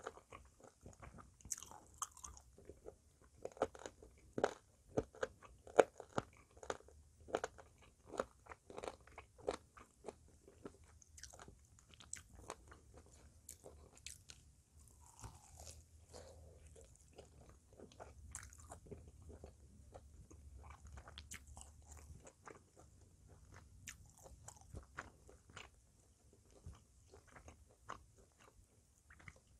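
Close-miked eating of smoked pork spare ribs with a crisp outer crust: crunchy bites and wet chewing. The crunches are sharpest and most frequent in the first ten seconds, then give way to softer chewing.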